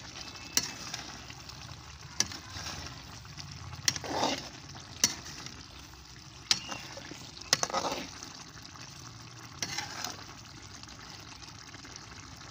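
A long-handled metal ladle stirring curry in a steel karahi, clinking and scraping against the pan at irregular intervals, over the steady hiss of the curry cooking.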